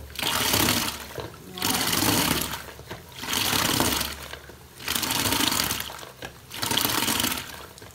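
Tornado Mop 360 spin mop being pumped: each push of the handle spins the mop head in the bucket's wash water. There are five spins, about one and a half seconds apart.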